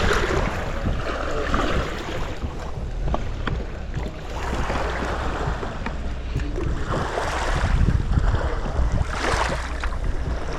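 Wind buffeting the microphone over water lapping and sloshing at the shoreline, in uneven gusting swells.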